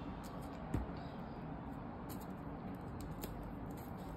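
Light handling sounds of hands on a plastic high-chair tray and a small piece of paper: a soft knock about a second in, then scattered small clicks and rustles over a steady low background hum.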